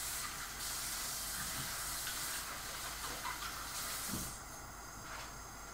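Diced chicken sizzling in a frying pan on a gas hob: a steady hiss that gets quieter a little after four seconds, just after a soft knock.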